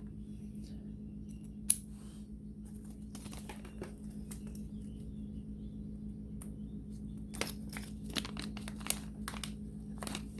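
Small motorcycle clutch parts (push rod, seals, washers, bearing) handled on a workbench: scattered light clicks and some crinkling over a steady low hum.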